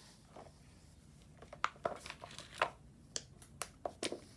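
Scattered light clicks and taps of fidget toys (silicone poppets and similar) being picked up and handled, irregular and growing busier after the first second or so.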